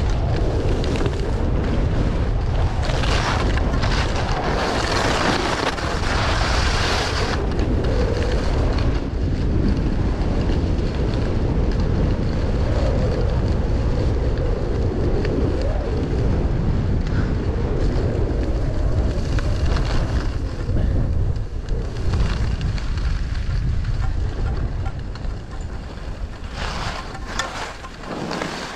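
Wind buffeting the microphone: a heavy, steady rumble with stretches of loud hissing in the first seven seconds and again shortly before the end.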